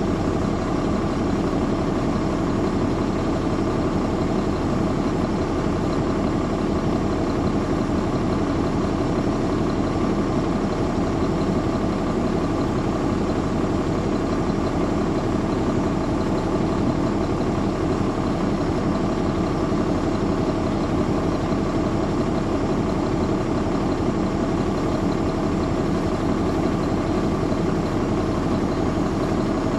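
Caterpillar C13 ACERT diesel engine of a 2009 NABI 416.15 transit bus running steadily at an even pitch, with no revving.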